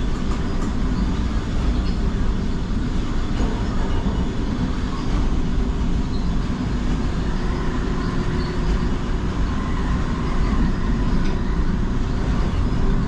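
Düsseldorf Airport SkyTrain, a suspended monorail people mover, running: a steady low rumble with a faint, even whine above it.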